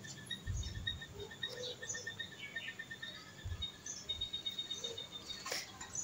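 Faint high chirping in quick, evenly spaced runs over a quiet background, with a few soft low thumps.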